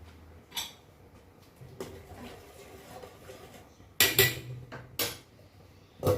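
Pots and utensils clattering in a kitchen: a few sharp knocks and clinks, a cluster around four seconds in and another at the end.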